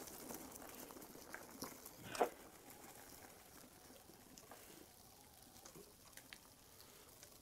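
Faint crackling patter of mountain-bike tyres rolling over wet fallen leaves in light rain, with one sharper crackle about two seconds in.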